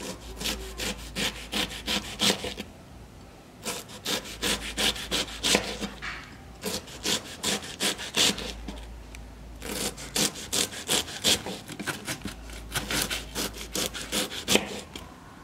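A kitchen knife slicing thin slices of banana stem on a plastic cutting board: quick, even cutting strokes, about four a second, in runs with short pauses between them.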